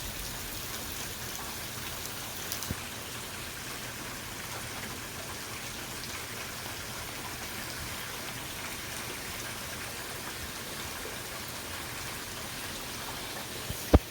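Steady rain falling and hitting surfaces, with a sharp knock just before the end.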